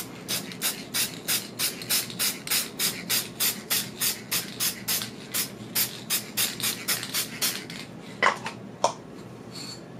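Aerosol can of clear matte acrylic spray being shaken, the mixing ball inside rattling in quick regular strokes, about three to four a second. The rattling stops about seven and a half seconds in.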